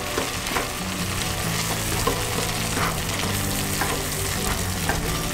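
Tomato sauce with green onion and cilantro sizzling gently in a small frying pan on low heat, while a wooden spatula stirs and scrapes through it in short strokes every second or so.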